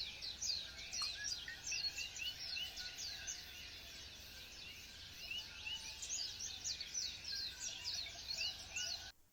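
Birds chirping: a dense chorus of short, high, repeated calls and quick falling notes, cutting off suddenly near the end.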